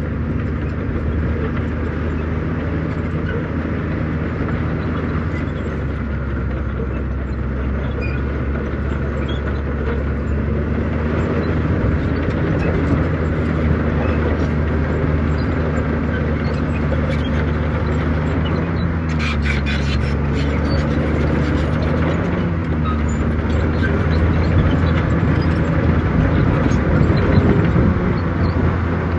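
Heavy diesel engine of earthmoving machinery running steadily, a little louder in the second half, with a brief burst of higher-pitched noise about two-thirds of the way through.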